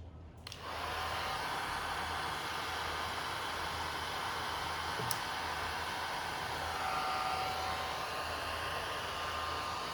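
Electric bubble gun's motor and fan switched on about half a second in and running steadily with a whirring hiss, with one short click near the middle.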